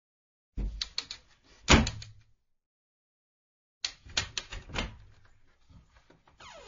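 Wooden cupboard door being worked twice, each time a quick run of creaky clicks and knocks. The first ends in a loud knock a little under two seconds in, and the second, about four seconds in, trails off into a faint wood squeak near the end.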